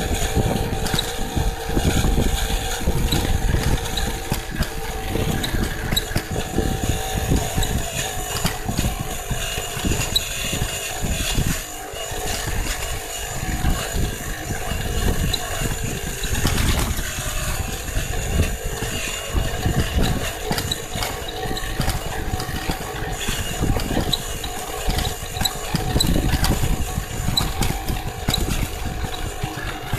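Electric mountain bike motor whining steadily under load on an uphill dirt-trail climb, over a rough, uneven low rumble of wind and tyres on the dirt.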